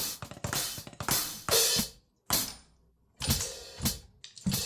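Hi-hat sounds from a 2Box Drumit 5 MKII electronic drum kit played as a series of separate strokes, some ringing on briefly and others cut short, with a short silent gap about two seconds in.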